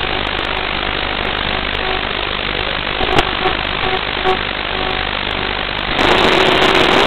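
Steady hiss, then about six seconds in the HGLRC Veyron 35 CR FPV quadcopter is armed and its motors start spinning at idle, a steady hum that makes the sound jump in loudness.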